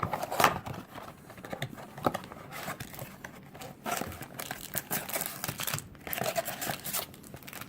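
A cardboard box of wrapped trading-card packs being torn open and emptied by hand, with irregular crinkling and tearing of cardboard and plastic wrap.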